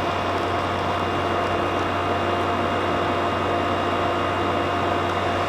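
Midea 5000 BTU window air conditioner running in cool mode, compressor and fan going together as a steady hum with a few faint steady whines over the rush of air. It runs normally, with a huge improvement in the sound now that the junk is cleared from its fan.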